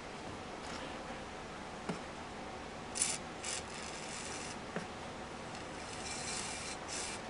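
Hand-tool work on a metal transmission case: several short rasping scrapes, with a light knock about two seconds in and another near the middle.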